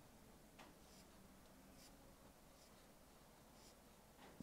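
Near silence with a few faint, brief scratches of a small paintbrush stroking acrylic paint onto canvas.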